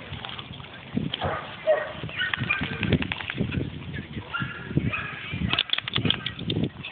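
Two dogs playing with balls on grass: irregular scuffling, footfalls and mouthing noises, with a few short high-pitched calls partway through and a quick run of clicks near the end.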